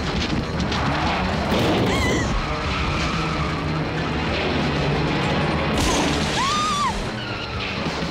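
Action-film soundtrack: a tense synthesizer score mixed with crash and impact effects and a car's engine, with short squeals of tyres about two seconds in and again near the end.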